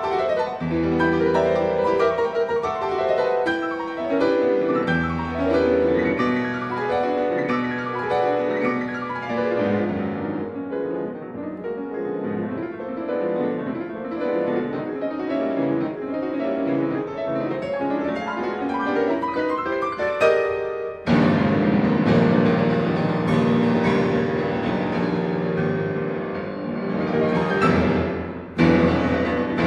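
Instrumental classical keyboard music, with notes overlapping. About two-thirds of the way through it breaks off and resumes with a fuller, denser passage.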